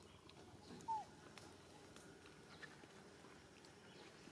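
A single short squeak from a macaque about a second in, gliding down in pitch, over a faint outdoor background.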